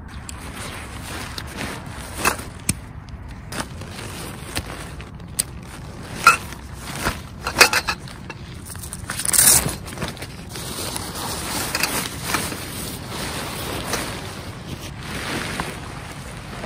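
Handling of a tent and its storage bag: scattered clicks and knocks, a loud zip pulled open about halfway through, then tent fabric rustling and swishing as the Lux Outdoor Megahorn 3 tipi is pulled out and shaken open.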